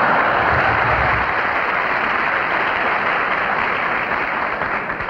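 Theatre audience applauding, a steady clatter of many hands that eases off near the end.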